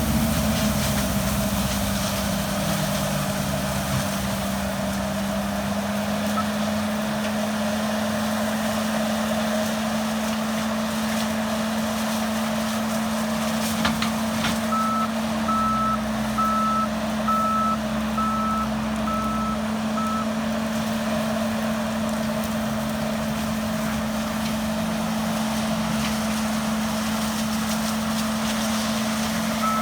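John Deere 333G skid steer running steadily with its SS ECO forestry disc mulcher attachment, a continuous machine hum. About halfway through, its reversing alarm beeps about seven times at an even pace, and it starts beeping again at the end.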